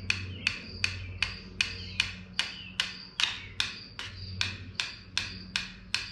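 Even, rhythmic hand scraping on the Chevy 350 block's oil pan gasket surface, about two and a half strokes a second, each a sharp rasp that fades quickly, as old gasket material is worked off.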